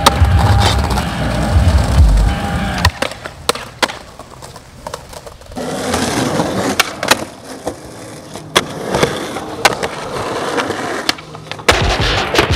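Skateboard wheels rolling on smooth concrete with a series of sharp wooden clacks from the board popping and landing. Music is playing at the start and comes back in near the end.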